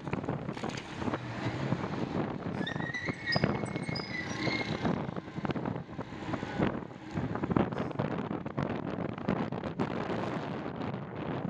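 Wind buffeting the microphone of a handlebar-mounted camera on a moving bicycle, with tyre and road noise and frequent rattling knocks from the bike. A high wavering squeal sounds for about two seconds near the start.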